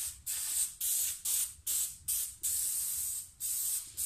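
Hose-fed spray gun spraying clear glue onto a laminate sheet in short bursts of spray, about two a second, as the trigger is pulled and released.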